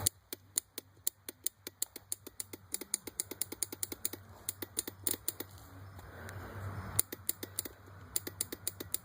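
Starter relay of a 2002 Yamaha Raptor 660R clicking rapidly, several uneven clicks a second, with the engine not cranking. The owner puts this down to a battery too small for the quad.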